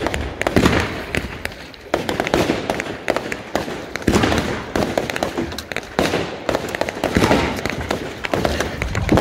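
Fireworks going off in a fast, continuous barrage of launches, bangs and crackling bursts. Louder bangs stand out about every two seconds.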